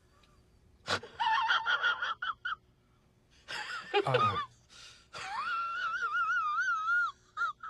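Comedic meme sound effect laid over the picture: high-pitched, wavering squealing cries in three bursts. The last is a long warbling wail, about two seconds long.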